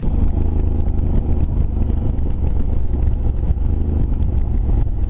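Motorcycle on the move, its engine running steadily under a heavy, constant wind rumble on the action camera's microphone.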